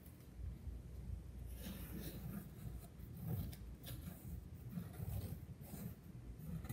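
Pencil scratching faintly along construction paper, tracing around a hand in short, uneven strokes with small ticks.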